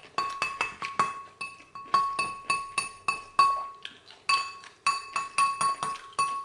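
A metal utensil tapping and scraping in a salad bowl: irregular clinks, about three a second, each leaving a short bright ring from the bowl.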